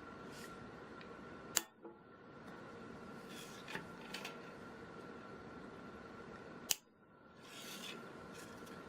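Wire cutters snipping the tails off plastic zip ties: two sharp snaps, about a second and a half in and near the end. Quieter clicks and handling rustle come between them.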